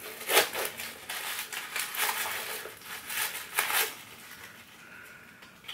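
Rustling and crinkling handling noises as a small pouch and its packaging are turned over in the hands, a few short crinkles, then quieter after about four seconds.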